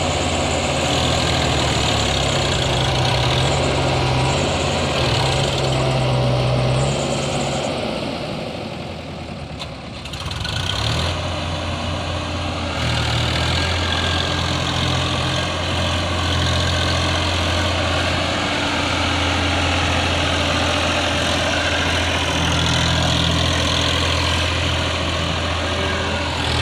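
Diesel engines of a backhoe loader and a Massey Ferguson 7250 tractor running steadily. About eight seconds in the sound dips and the engine note drops, then it picks up again about three seconds later.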